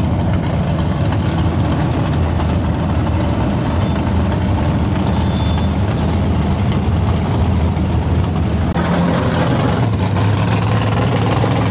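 Drag cars' V8 engines idling, a loud steady rumble. About nine seconds in it switches abruptly to a different car's engine idling close by.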